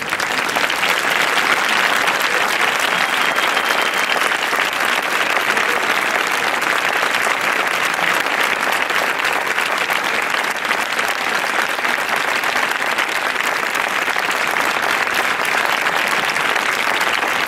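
A large crowd breaking into dense, steady applause.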